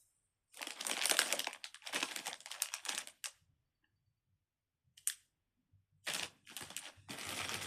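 Fidget toys being rummaged through and picked up by hand: bursts of rustling and clicking crinkle, with a quiet gap in the middle broken by a single click.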